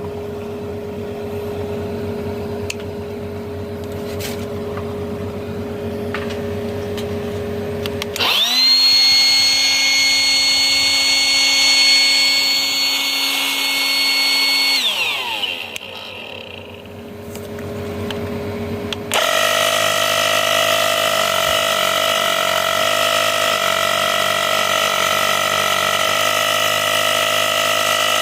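Small electric motor running. It hums steadily at first, then about eight seconds in it spins up quickly to a high, steady whine, which winds down about seven seconds later. After a short lull it runs again, steadily, from a little past the middle.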